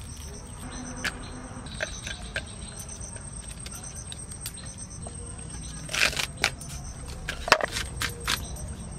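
Scattered crisp snaps and cracks of fresh water lily (sapla) stalks being handled and cut, over a steady low background rumble. There is a quick cluster of snaps about six seconds in, and the loudest single crack comes a second or so later.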